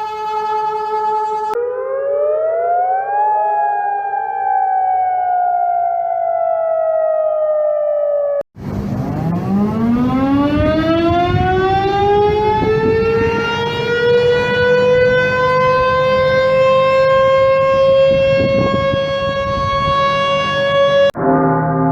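Warning sirens. A steady tone slides up in pitch and then slowly falls. It cuts off suddenly about eight seconds in, and a civil-defence siren winds up from a low pitch, rising steadily and levelling off, until it cuts off near the end.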